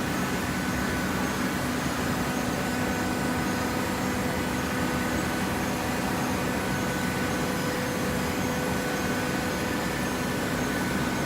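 Coconut fibre baling machine running with a steady, even mechanical hum.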